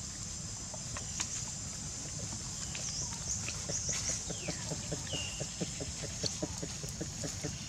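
Outdoor ambience: a steady high-pitched insect drone with scattered bird chirps. From about halfway through comes a rapid, even run of low pulses, about five a second.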